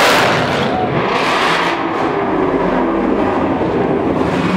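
A car engine revving, in two loud surges in the first two seconds, then running lower.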